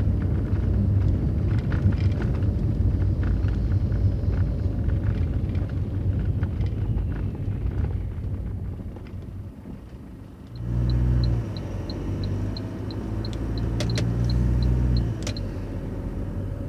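Car driving, heard from inside: tyres rumble and clatter over paving stones, then fade as the car slows. About two-thirds of the way in, the engine pulls away with a low drone, and a light regular ticking, about three ticks a second, runs for several seconds.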